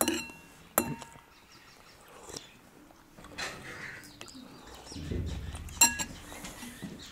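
Cutlery clinking against a dish three times: short, sharp clinks that ring briefly, the loudest about six seconds in.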